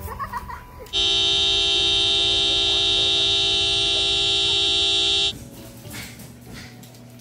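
A car horn blares in one long steady blast of about four seconds, starting about a second in and cutting off suddenly, sounded by a husky pressing on the steering wheel from the driver's seat.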